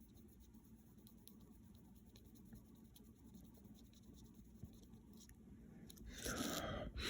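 Faint scratches and light taps of a pencil on a paper checklist in a quiet room. About six seconds in there is a short, louder rustle lasting under a second.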